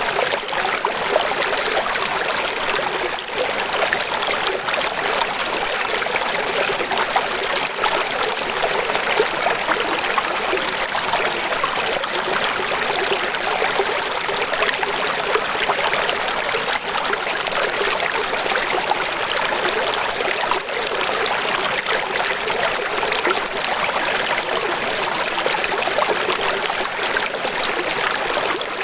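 Running water, like a stream trickling and splashing over stones, making a steady, even rush with little deep rumble.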